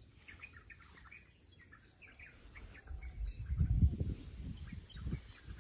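Birds chirping in short, faint calls. From about three seconds in there is a louder low rumbling on the microphone, strongest a little before the four-second mark, which fades by the end.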